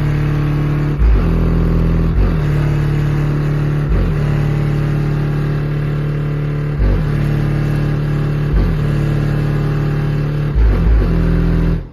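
Car engine sound effect, held at steady high revs. The revs dip briefly and pick up again several times, as if through gear changes.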